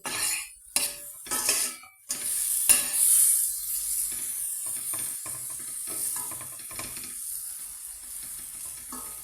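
Diced bacon sizzling in butter in a frying pan, with a utensil stirring and scraping against the pan several times in the first three seconds, then a steady sizzle.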